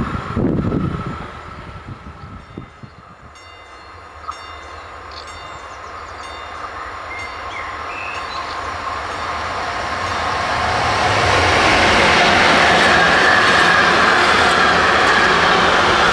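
Container freight train behind an electric locomotive approaching and passing close: the rolling noise of steel wheels on rail swells from about eight seconds in to a loud, steady rush as the wagons go by. In the first second or two, the noise of a previous train fades away.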